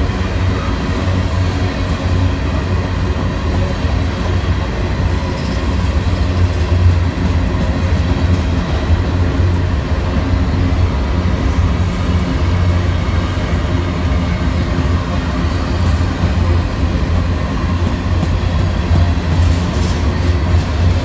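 Freight train's hopper cars rolling past close by: a loud, steady rumble of steel wheels on rail with some clickety-clack.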